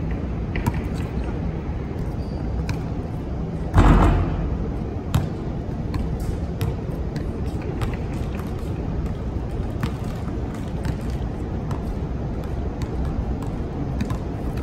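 A basketball bouncing on an outdoor hard court during a pickup game: scattered short knocks over a steady low rumble, with one louder muffled thump about four seconds in.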